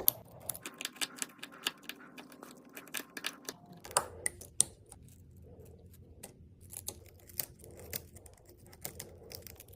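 Irregular small clicks and crackles, a few a second, of a hand tool picking and prying at shattered iPhone back glass, with one sharper click about four seconds in.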